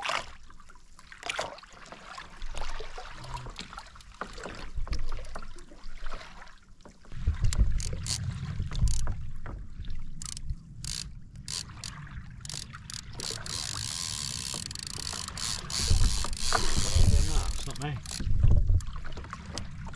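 Water lapping and slapping against a sit-on-top fishing kayak's hull, with irregular clicks and knocks from rod and reel tackle, mostly in the first half. Heavy low rumbles come in about seven seconds in and again near the end.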